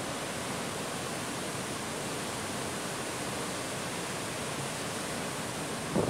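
A steady, even rushing noise that holds at one level, with no distinct events in it.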